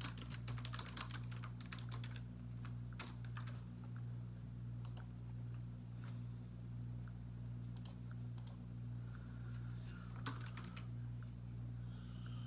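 Typing on a computer keyboard: short, irregular bursts of keystrokes with pauses between them, over a steady low hum.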